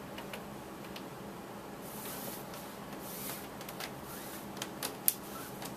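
Paracord being pulled through loops and dragged over a wooden desktop: soft swishing rustles, then a few light clicks and taps in the second half, the sharpest about five seconds in.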